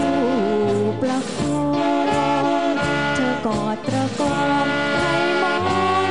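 Live dance band playing a Thai luk krung duet, with saxophone and brass, and a woman singing the melody over it.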